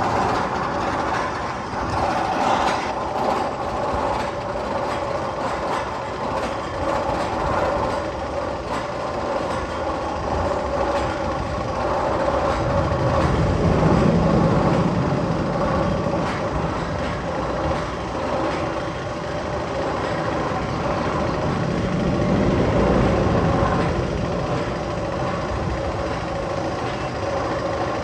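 Magnum XL 200 steel roller coaster train running on its track with a steady rumble and a held whine, swelling louder about halfway through and again near the end.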